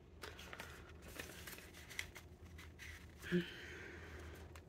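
Faint rustling and light clicks of paper banknotes and a plastic envelope pocket in a cash binder being handled, with one short vocal sound about three and a half seconds in.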